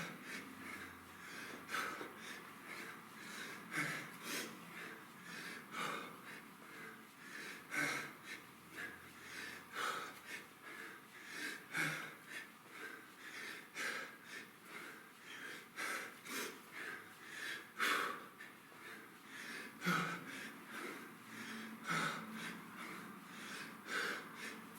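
A person breathing hard through a set of kettlebell high pulls: a forceful exhale about every two seconds, in time with the reps, with smaller breaths in between.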